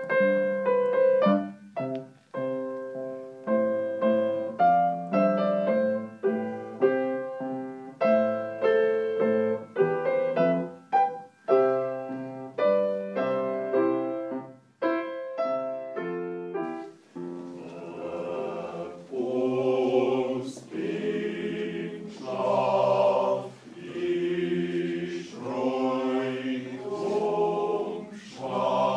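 Grand piano playing a passage of chords and notes for about the first half, then a choir singing from about halfway through.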